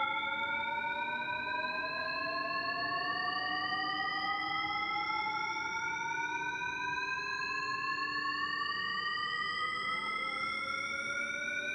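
Synthetic, effect-processed electronic tone made in the 4ormulator audio effects software: one steady pitch with a stack of overtones, gliding slowly and evenly upward in pitch, siren-like.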